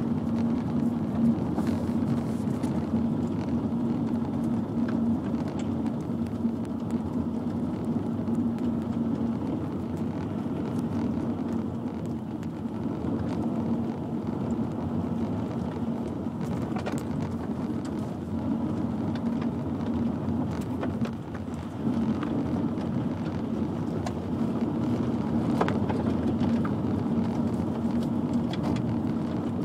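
Hail pelting the roof and windscreen of a moving car, heard from inside the cabin as a dense patter of sharp, irregular hits over a steady low drone of engine and road noise.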